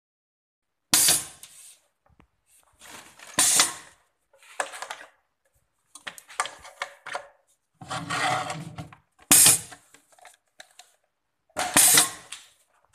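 Pneumatic jaws of a benchtop semi-automatic laminate-tube sealer cycling twice. Each seal gives a sharp burst as the jaws clamp, then another about two and a half seconds later as they open. Smaller knocks and rustles of handling come in between.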